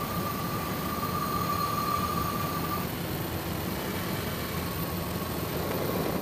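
Steady engine-like drone with a thin high whine that drops away about three seconds in.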